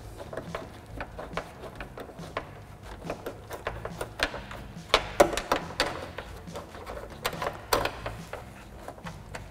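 Scattered small metal clicks and taps from a 10 mm nut and socket being fitted and started by hand on the door handle's studs, with a few louder knocks about five seconds and eight seconds in.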